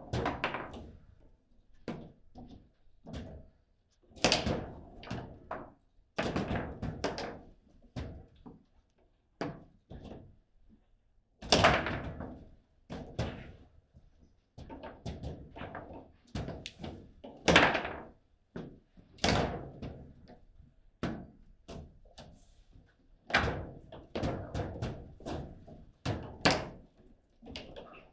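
Table football in play: irregular knocks and thunks as the ball is struck by the rod figures and bangs off the table walls, in quick clusters with short pauses. The loudest hits come about a third and two-thirds of the way through.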